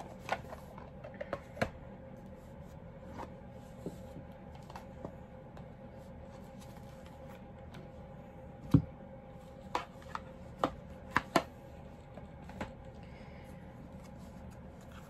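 A deck of cards being handled and shuffled: scattered light clicks and taps, with a sharper knock about nine seconds in and a quick run of clicks around eleven seconds.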